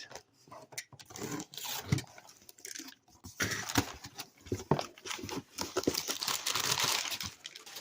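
A cardboard shipping box being opened by hand. First come scattered light knocks and handling noises. From about three and a half seconds in there is a sustained rustle of paper and cardboard tearing and crinkling.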